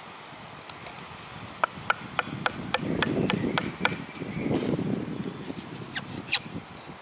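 Knife blade stabbing and prying into a dead, rotten log: a quick run of sharp knocks with crunching and cracking of bark and brittle wood, then two more knocks near the end.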